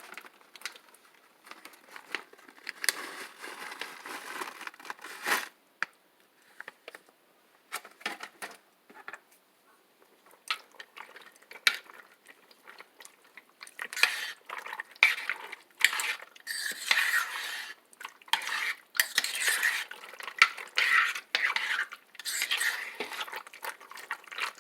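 A spoon clinking and scraping against a pot while stirring, in scattered strokes that grow busier and more continuous about halfway through.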